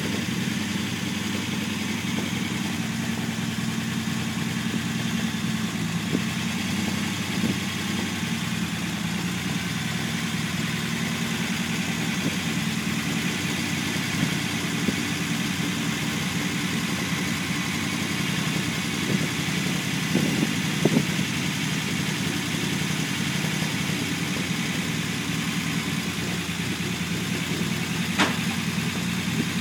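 Unimog 404's inline-six petrol engine idling steadily after its first start following a rebuild and rewire. A couple of light knocks come about two-thirds of the way through, and a sharp click near the end.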